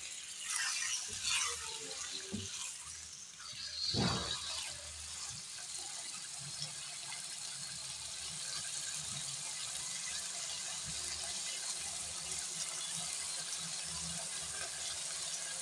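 Chicken pieces sizzling steadily in hot oil in a nonstick frying pan as the meat's water cooks off. A silicone spatula scrapes and stirs them in the first couple of seconds, with a louder knock about four seconds in.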